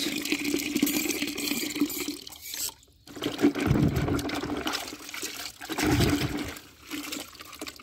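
A thin stream of water pouring into a plastic tub of muddy water, breaking off about three seconds in. Then a hand swishing and sloshing through the water in the tub, with two louder surges.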